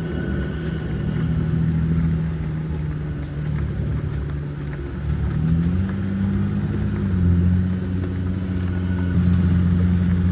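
Jeep Gladiator Rubicon's 3.0-litre V6 diesel engine running at low revs as the truck crawls up a trail in four-wheel-drive low. The engine note rises a little about five and a half seconds in, then settles.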